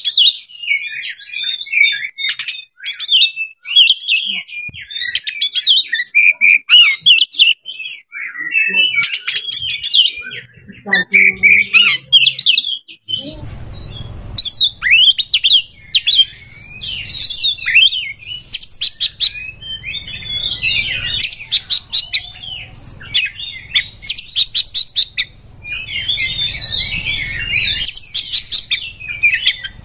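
Oriental magpie-robin (kacer) singing a fast, varied song of high whistled runs mixed with sharp clicking notes, the kind of rich mimicked song bird keepers play to provoke other birds. A low background rumble joins about halfway through.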